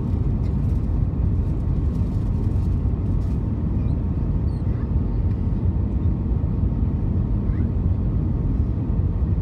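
Steady low rumble of airflow and jet engines inside an Airbus A320's passenger cabin on approach with the flaps extended, with a faint steady hum running through it.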